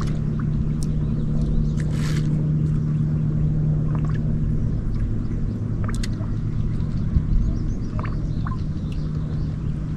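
A boat motor runs steadily with a low hum and rumble, and a few sharp clicks are scattered through it.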